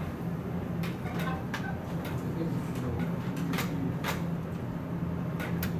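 Lecture-room tone: a steady low hum with about half a dozen short, light clicks and knocks scattered through it.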